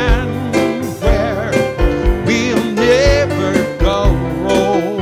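Country gospel music on an electronic keyboard, with a steady drum beat and a wavering lead melody over held chords.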